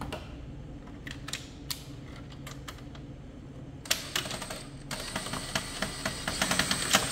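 Hand tool clicking and rattling on the metal of a ceiling cassette air-conditioner unit as a ground wire is undone. First a few scattered clicks, then from about four seconds in a dense run of rapid clicking.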